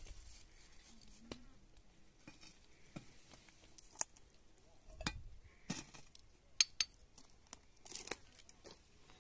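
Sparse, irregular clicks and light knocks with some rustling, the sharpest clicks coming a little past the middle.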